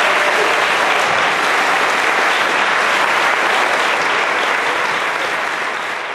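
Large theatre audience applauding: dense, steady clapping that slowly begins to die away over the last couple of seconds.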